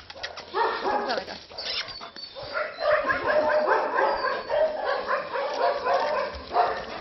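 Dogs barking and yelping: a few short calls near the start, then a dense, loud run of overlapping barks from about two and a half seconds in.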